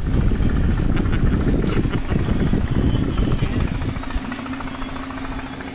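A small boat engine running: a low rumble that eases about four seconds in to a steadier, quieter hum.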